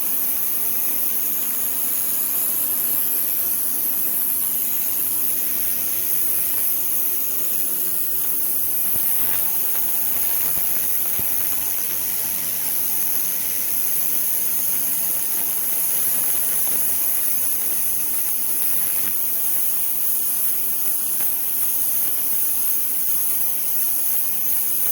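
Ryobi 1600 PSI electric pressure washer spraying continuously, its high-pressure water jet hissing steadily against a surface about six inches away, over a steady hum from the electric pump motor.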